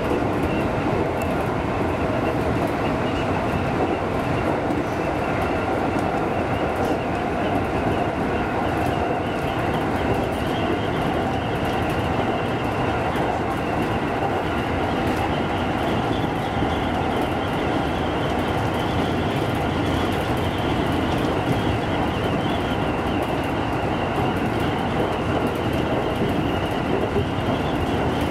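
JR East 205 series electric train running at speed, heard inside the front car behind the driver's cab: a steady rumble of wheels on rail with faint high tones held steadily above it.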